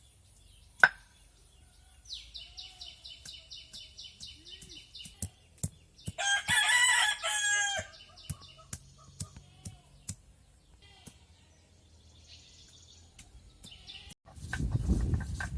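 A rooster crows once, loudly, about six seconds in, after a quick run of repeated bird chirps, with scattered knocks around it. Near the end a low, gritty rumble starts: ginger and garlic being ground into paste on a grinding stone.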